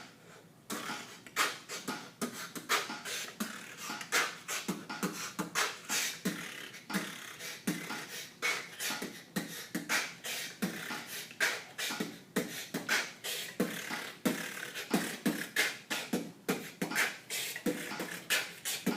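Solo human beatboxing: a dense run of mouth-made kick, snare and hi-hat sounds, several sharp hits a second with short hissing and humming bits between.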